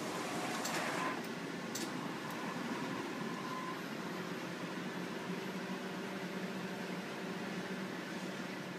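Direct-to-garment textile printer running with a steady mechanical hum, a few light clicks about one to two seconds in.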